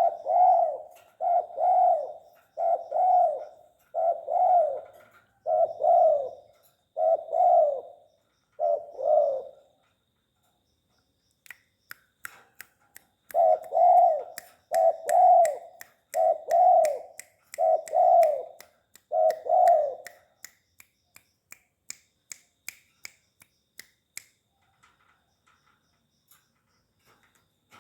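Spotted dove (tekukur) cooing in two series of low, repeated coos, about seven and then about five, spaced roughly a second and a half apart. A run of sharp clicks, about three a second, starts shortly before the second series and stops a few seconds after it.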